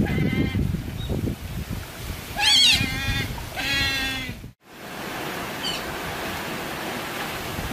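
Otters calling: three high-pitched, wavering squeals, the loudest about halfway through the first half, the excited calls of otters waiting to be fed. After a brief dropout, a steady rushing background follows.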